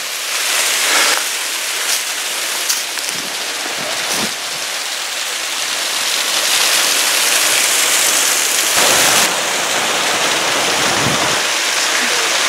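Creek water rushing down a waterfall cascade, a loud steady rush that grows louder about halfway through, with a few brief knocks in the first seconds.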